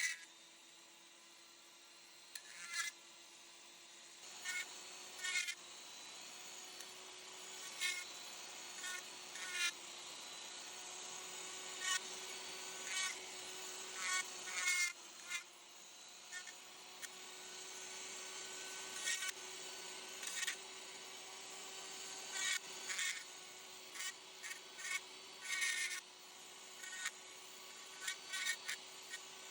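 Rotary power carving tool running with a steady whine, its bit grinding into dense manzanita root wood in many short, irregular bursts.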